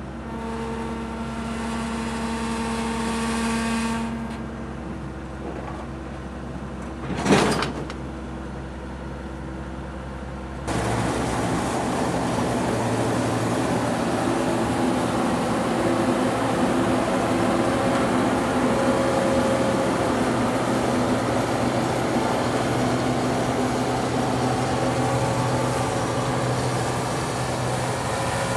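John Deere 1470 combine harvester running with a steady hum of engine and drives, with a short loud burst about seven seconds in. About ten seconds in, the sound jumps suddenly to a louder, fuller steady running as the combine cuts and threshes wheat.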